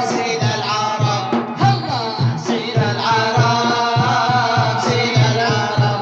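Men's voices singing an Arabic nasheed melody over a steady, low percussion beat.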